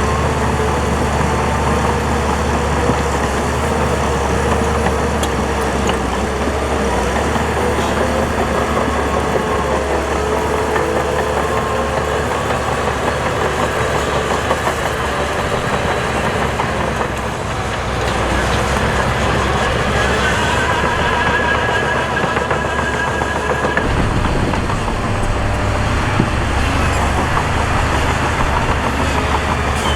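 Diesel engines of heavy earthmoving machinery running under load, their pitch wavering as the throttle changes, with a higher engine whine for a couple of seconds about two-thirds of the way through.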